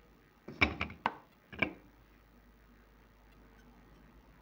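Crunching bites into hard, dry baked clay: a quick cluster of about four sharp cracks in the first second and a half, then nothing.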